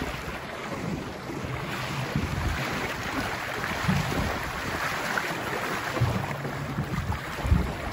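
Water rushing and splashing along the hull of a small lapstrake sailing dinghy under way, with gusts of wind buffeting the microphone several times, the strongest near the end.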